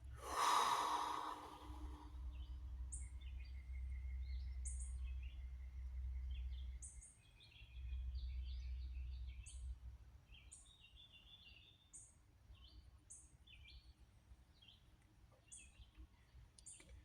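A person's long breathy exhale, sigh-like, about half a second in, the loudest sound here. After it, small birds chirp in short repeated high calls over a low rumble.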